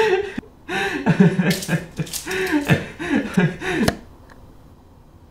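A man's wordless vocal sounds: a string of short rising-and-falling moans and whimpers for about four seconds, ending on a single sharp click.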